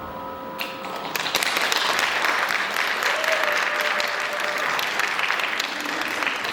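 Audience applause, starting as the music dies away and swelling about a second in into steady clapping from many hands.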